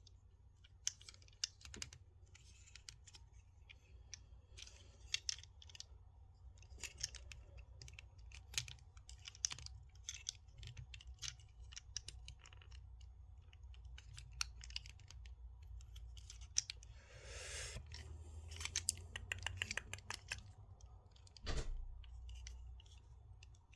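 Plastic joints and parts of a Transformers action figure clicking and snapping as it is handled and transformed: many small, scattered clicks, with a short rustle about seventeen seconds in.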